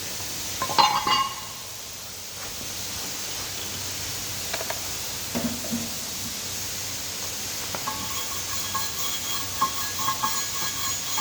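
Steady hiss with metal clanking on metal: a loud clank with a ringing tone about a second in, a few knocks midway, then a run of irregular light ringing taps from about eight seconds on.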